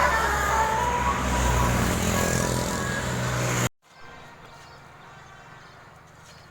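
A Basuri telolet horn on a small bus plays the last notes of its stepping, multi-tone tune, then gives way to loud engine and road noise. About three and a half seconds in, the sound cuts off abruptly to a much quieter background.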